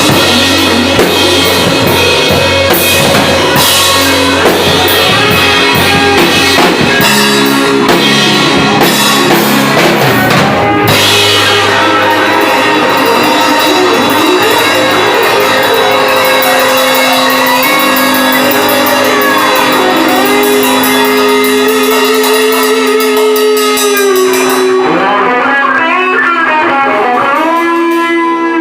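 Rock band rehearsal with drum kit and electric guitar playing loudly. The drumming thins after about ten seconds under held guitar notes, and near the end the cymbals drop out, leaving gliding, bent guitar notes.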